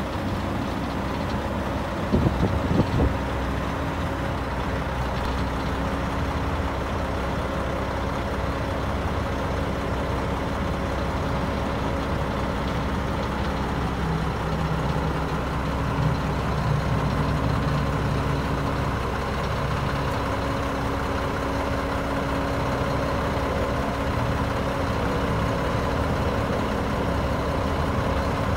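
Heavy Mack truck's diesel engine idling steadily, a low hum with a constant tone over it. A few brief knocks come about two seconds in.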